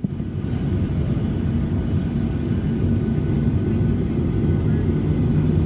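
Airplane engines running: a steady low rumble with a faint steady hum, slowly growing a little louder.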